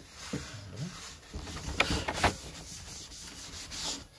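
Gloved hand rubbing over a sanded wooden panel, a dry scraping and wiping sound, with two sharp knocks about half a second apart roughly two seconds in.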